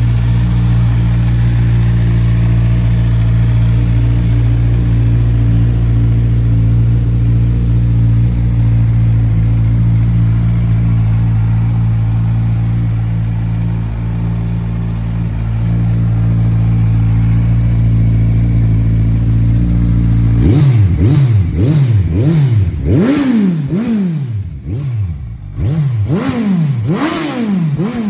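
Kawasaki Z1000's inline-four engine running loud through an aftermarket sport exhaust: a steady idle for about twenty seconds, then a quick series of throttle blips, each revving up and falling back.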